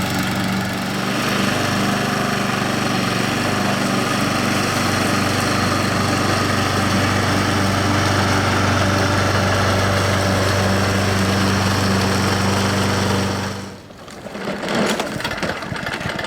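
Husqvarna HU725AWD walk-behind lawn mower engine running at a steady speed, then stopping abruptly near the end, followed by a few light rattles.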